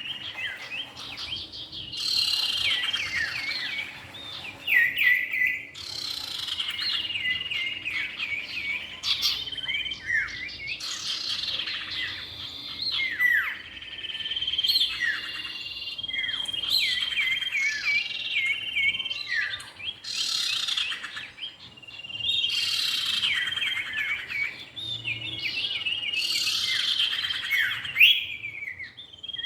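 Common iora (cipow) song and calls of male and female birds: busy phrases of sharp chirps, trills and downslurred whistles, coming in bursts that start and stop abruptly every few seconds, as in an edited lure recording.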